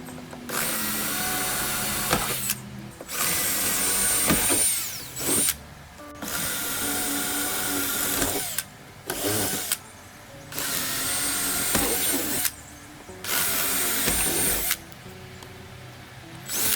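Power drill drilling out the rivets along a sailboat's hull-to-deck seam, in about six bursts of a second or two each, with short pauses between. Each burst carries a high, steady whine.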